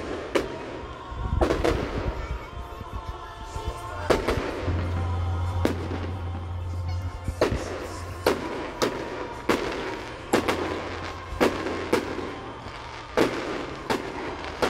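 Aerial firework shells bursting in a string of sharp bangs, sparse at first and then about once a second through the second half.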